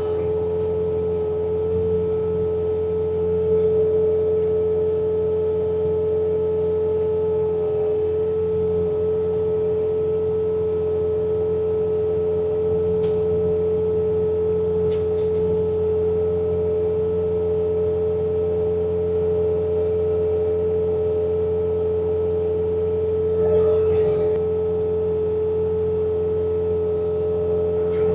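Bobcat T66 compact track loader running steadily with its snowblower attachment working, a strong steady whine held over the low drone of the engine.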